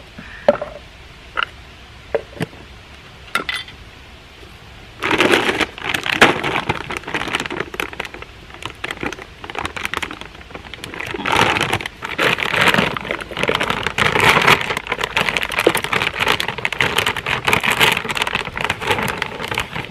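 A few faint clicks, then from about five seconds in the plastic bag of dog biscuits crinkles and rustles loudly as it is handled and reached into.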